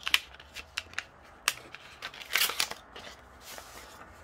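Red paper envelope being opened by hand and a greeting card pulled out: a series of crisp paper crackles and rustles, with a longer burst of rustling a little past halfway.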